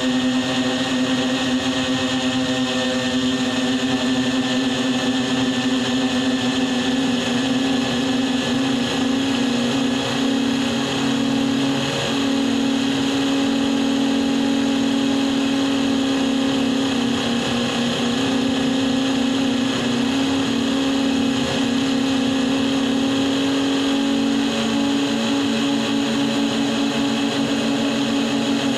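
Multirotor drone's electric motors and propellers, heard close up, humming steadily with a high buzzing whine. The pitch shifts a few times as the throttle changes.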